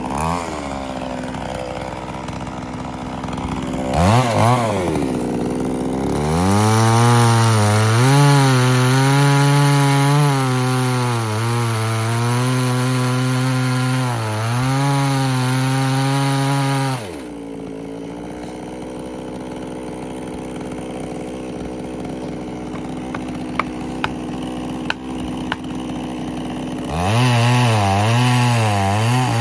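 Two-stroke chainsaw making a felling cut at the base of a tree. It idles and blips briefly, then runs at full throttle in the cut for about ten seconds, its pitch dipping and recovering as the chain loads up in the wood. It drops back to idle for about ten seconds, with a few sharp knocks, then revs back into the cut near the end.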